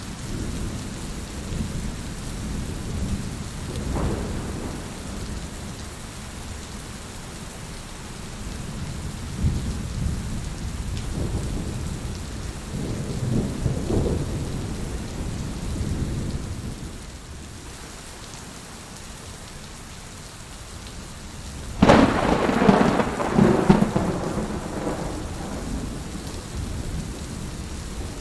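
Steady rain with thunder rolling in low rumbles, and a sudden, loud thunderclap about 22 seconds in that rumbles on for a few seconds.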